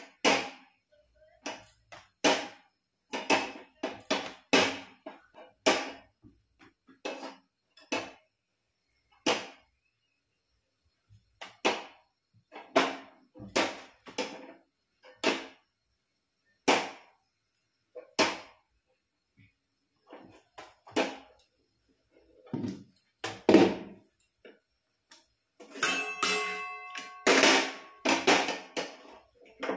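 Metal utensil knocking and clattering against a tawa and pan as rotis are pressed and turned on a gas stove: scattered single taps and clunks, with a busier run of clatter and a brief metallic ring near the end.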